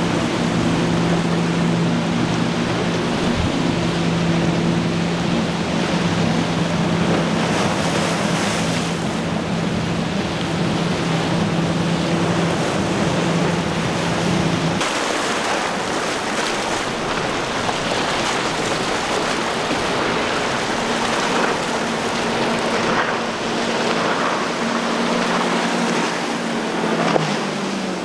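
Twin outboard motors on a center-console boat running steadily at speed through choppy water, over a constant wash of surf and wind noise. About halfway through the engine hum cuts out and another outboard's steadier hum takes over, dropping in pitch near the end.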